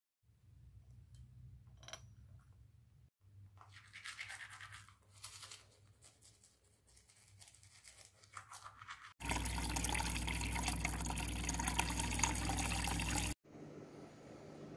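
Teeth being brushed with a manual toothbrush, scrubbing in short uneven strokes. Then a tap runs loudly into a jug for about four seconds and cuts off suddenly.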